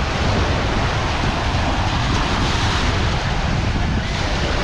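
Strong wind buffeting the microphone in a heavy, steady rumble, over the wash of sea surf breaking on the beach.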